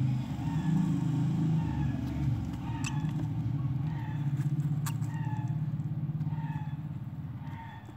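A motor vehicle engine running steadily, fading a little near the end, with short high chirps repeating about once a second and a couple of sharp clicks.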